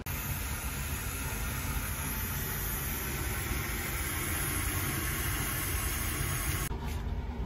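A Paloma gas-table burner is running under a pressure cooker, making a steady low roar with a hiss over it. The hiss drops away near the end.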